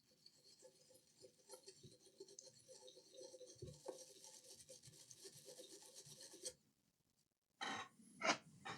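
Small brush scrubbing the freshly soldered USB-C charging port area of a laptop motherboard to clean it: faint, rapid scrubbing strokes that stop about two seconds before the end, followed by a couple of louder short knocks.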